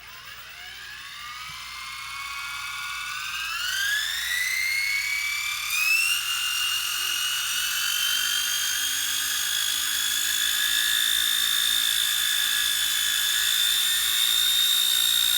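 XK K124 RC helicopter's brushless motors and rotors spooling up: a high whine that climbs steeply in pitch over the first six seconds, then holds a steady high note that creeps slowly upward.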